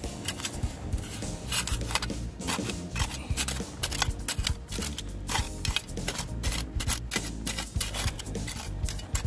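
Metal hand digger blade stabbing and scraping into hard, dry soil, in quick irregular strokes with crunching dirt.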